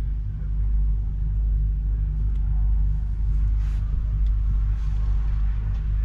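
An engine running steadily at idle: a deep, even rumble.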